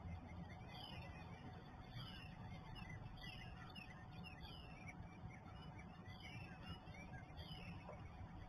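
Northern cardinal singing faintly, a short slurred whistle repeated again and again, over a low steady background rumble.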